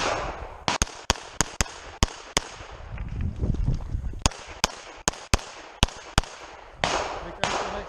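Pistol shots fired rapidly during a timed USPSA stage: about six quick shots, a pause of nearly two seconds, then about seven more in fast succession, with two duller bangs near the end.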